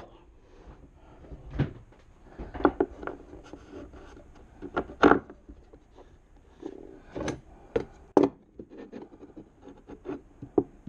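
Hands handling a bolt and metal parts on a wooden workbench top: scattered light knocks, taps and rubbing, with a sharper click about five seconds in and a few more between seven and eight seconds in.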